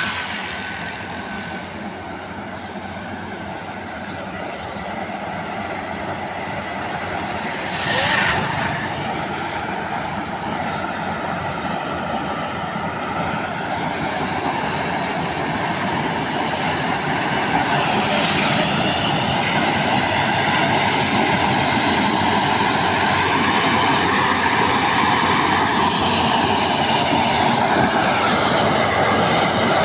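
Combine harvester running steadily and gradually getting louder, with a brief louder burst about eight seconds in.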